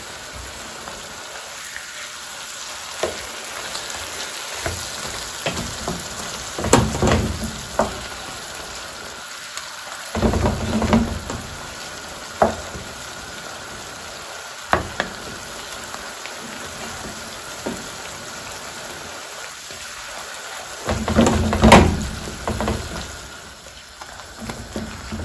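Shrimp simmering in garlic-butter sauce in a pan, with a steady sizzle. A wooden spatula scrapes and knocks against the pan several times as the shrimp are turned over, loudest a few seconds before the end.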